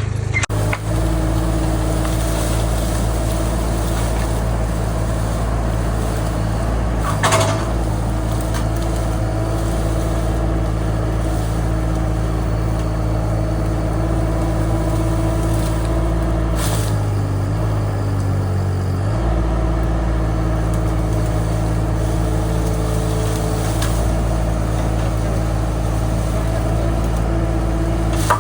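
Case TL100 mini skid steer's engine running steadily at working speed while it clears brush with a grapple, its pitch sagging briefly under load about two-thirds of the way in and then recovering. A couple of short knocks are heard along the way.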